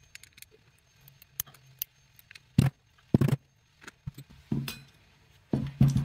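Small metal parts of a disassembled disc-detainer padlock clicking and clinking as the discs are worked out of the lock body, with several louder knocks in the second half.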